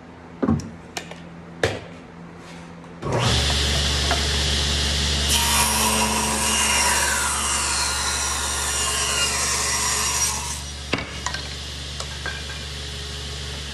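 A few sharp knocks, then a Powermatic table saw switched on about three seconds in, its motor running with a steady hum. From about five to ten seconds a maple board is ripped through the spinning blade, adding a loud high hiss. The saw then runs on with no wood in it, with a few more knocks near the end.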